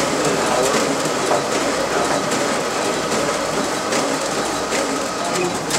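RISO ComColor 9050 high-speed inkjet printer running a duplex print job, with paper being fed through the printer and its finisher. It makes a steady mechanical whir with rapid, continuous clicking and clatter.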